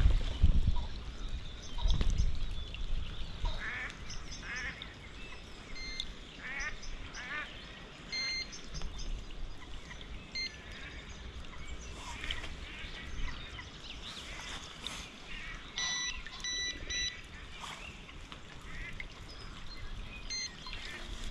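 Electronic carp bite alarms giving short high beeps as they are switched on one by one, their blue LEDs lighting. Waterfowl call from the lake, and there are a couple of low handling thuds near the start.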